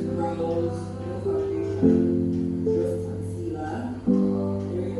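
Background music: guitar chords, each new chord struck about every two seconds.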